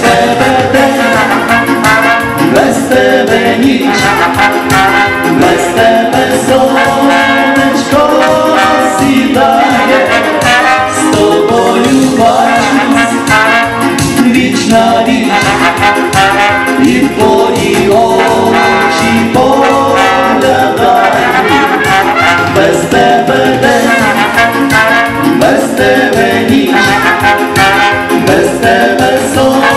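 A live band with brass, trumpet, trombone and saxophone, playing a tune, loud and continuous.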